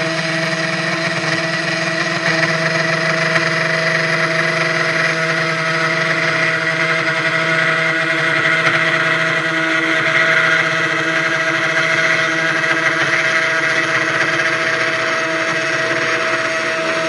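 CNC 1610 Pro desktop router's spindle running with a 3 mm end mill cutting in shallow 0.4 mm passes: a steady whine with a hiss of cutting over it.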